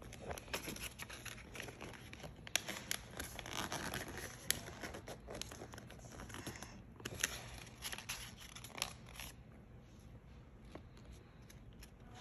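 Paper airplane of plain letter-size paper being folded by hand: rustling and sharp creasing strokes as the folds are pressed down. The handling goes quieter for the last few seconds.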